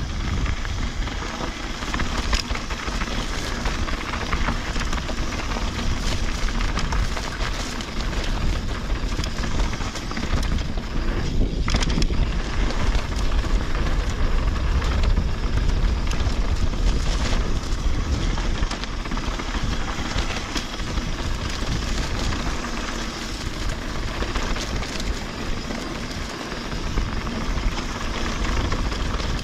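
Mountain bike rolling fast along a dirt singletrack: wind rumbling on the camera microphone, tyres on dirt and a steady scatter of clicks and rattles from the bike.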